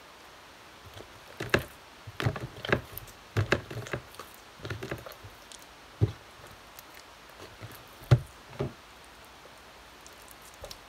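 Hands kneading, pulling and slapping slime down into a plastic tub: about a dozen irregular short slaps and knocks, the loudest about one and a half seconds in and about eight seconds in.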